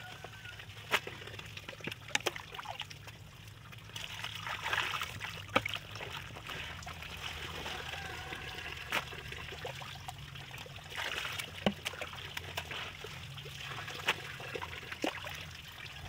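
Wet, soapy clothes being scrubbed and wrung by hand on a concrete washing stone, with water trickling and splashing and occasional sharp clicks.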